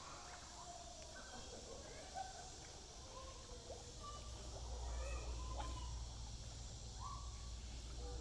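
Quiet outdoor ambience: scattered short, faint calls at varying pitches over a steady high hiss. A low rumble grows louder about halfway through.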